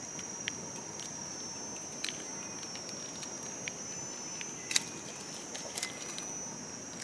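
A steady, high-pitched insect drone of cicadas or crickets fills the forest, with a few sharp clicks and rustles from a knife working mushroom stems and dry leaf litter, the loudest about two-thirds of the way through.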